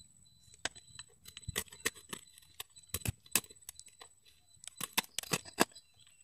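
A plastic seed packet being slit open with a small knife: irregular short ticks and crinkles of the blade catching and cutting the plastic, with a quick run of them about five seconds in.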